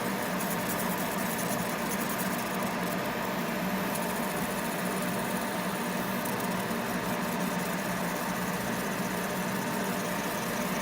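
Steady machine hum with fan noise from a running laser separating machine and its smoke purifier, unchanging throughout.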